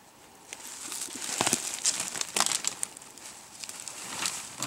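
Crinkling and rustling in irregular crackly bursts, starting about half a second in and loudest through the middle.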